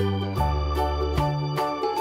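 Background music: an organ-like electronic keyboard tune over a stepping bass line with a steady beat.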